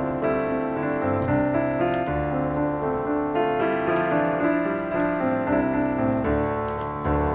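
Background piano music with notes changing about every half second.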